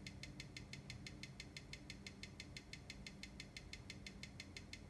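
Seiko NH35 automatic watch movement ticking steadily at about six ticks a second, with a faint low hum under it. The ticks are even: the movement measures 0.3 ms beat error, +1 to +3 seconds a day and 283° amplitude in the dial-down position.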